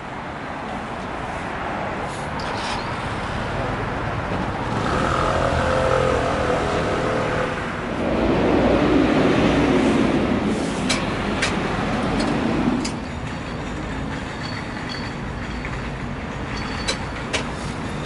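Road traffic on a city street: a steady background rumble with two vehicles passing close, one about five seconds in and a louder, deeper one from about eight to thirteen seconds in.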